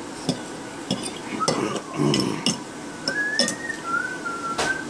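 Metal fork clinking and scraping against a plate in a string of sharp taps. A thin, wavering whistle-like tone runs through the second half.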